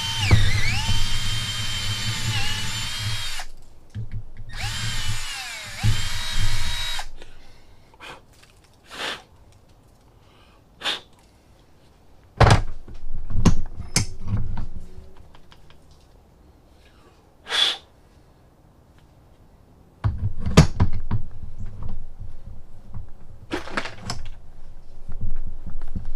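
Milwaukee M12 cordless drill drilling out stripped bolt holes in a mower transmission housing for thread inserts. The motor whines in two runs with its pitch dipping and recovering under load, stopping about seven seconds in. After that come scattered clicks and knocks of tools being handled, and a rougher clattering stretch near the end.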